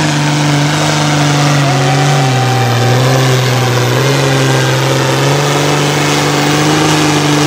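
Pulling tractor's engine running loud and hard under load during a pull. Its pitch drops a little about two seconds in and rises back about five seconds in.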